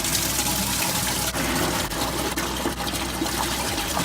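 Steady rush of water flowing and splashing through a reef aquarium's tank, plumbing and sump during a freshwater fill and leak test.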